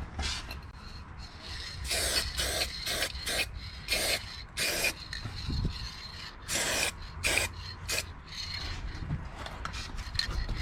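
Aerosol spray paint can sprayed in short hissing bursts, about a dozen in a row, onto a freshly welded subframe plate.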